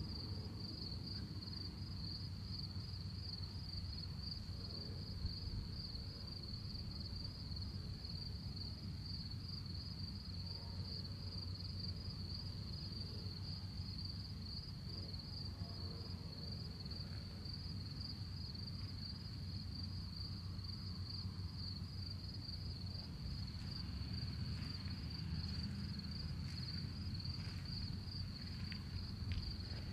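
Steady, high-pitched pulsing trill of insects, crickets or similar, over a low steady rumble, with a few faint chirps near the end.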